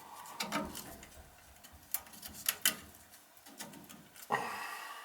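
A few scattered light clicks and taps of hands handling tools or meter leads, about five in all, over faint background noise.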